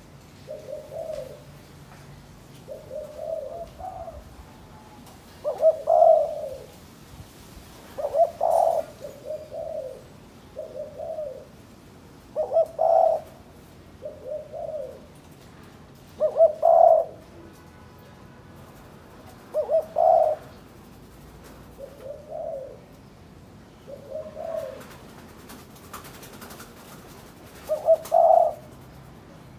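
Spotted dove cooing over and over: short phrases of low coos every few seconds, louder phrases alternating with softer ones.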